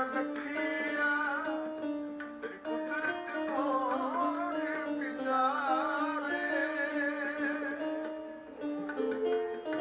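Sikh kirtan music: held notes stepping from pitch to pitch under a wavering melody line, with plucked strings and tabla.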